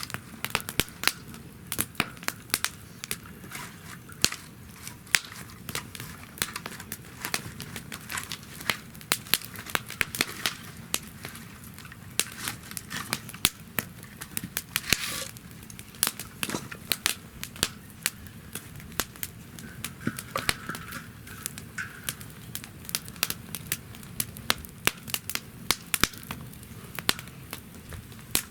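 Wood fire burning in a campfire stand: frequent, irregular sharp crackles and pops over the steady low sound of the flames, with a brief hiss about fifteen seconds in.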